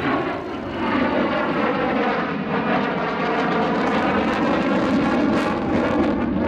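Saab 37 Viggen's Volvo RM8 afterburning turbofan running loud and steady as the jet flies past low.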